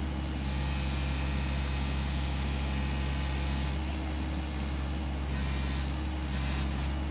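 Excavator's diesel engine running steadily at a constant speed.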